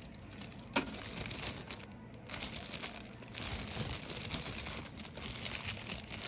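Clear disposable plastic glove crinkling as a hand handles hard-dried beef liver pieces on a plastic food-dehydrator tray, in irregular crackles, with a sharp tap about a second in.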